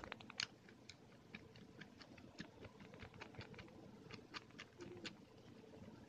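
3D-printed double-helical compound planetary gearbox turned by hand: faint, irregular clicking and ticking of plastic gear teeth and parts, with a couple of sharper clicks just under half a second in.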